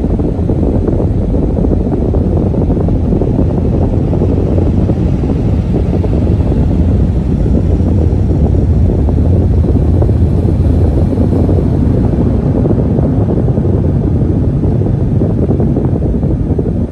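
Automatic car wash air dryer blowers running, a loud, steady rush of air with a heavy low rumble.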